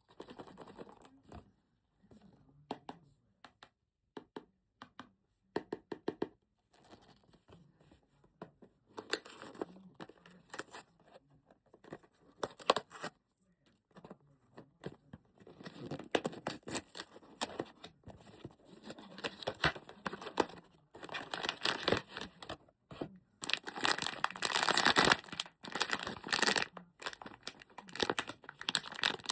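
Blind-box packaging being handled and torn open: scattered crinkling and tearing, sparse at first, then busier and louder from about halfway, with a long stretch of continuous crinkling near the end.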